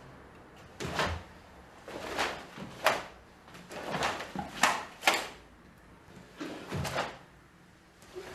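Barefoot karate kata on a wooden floor: sharp snaps and swishes of the cotton gi with each strike, and thumps and scuffs of feet stepping and stamping, about nine sudden sounds in irregular clusters.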